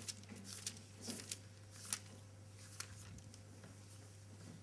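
Faint rustling of thin Bible pages being turned, a few short crackles in the first two seconds, over a low steady hum.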